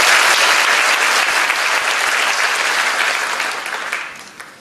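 Applause from a roomful of people clapping, dying away about four seconds in.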